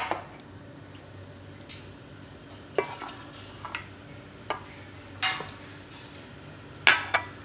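Several short clinks and knocks of kitchenware against a plastic tub as marinated shrimp are laid, a few at a time, into a tub of flour coating. The knocks come at irregular intervals, and the loudest is near the end.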